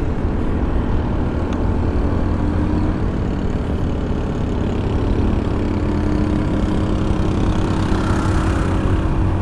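Motorcycle engine running steadily under way, with wind and road noise rushing over the microphone.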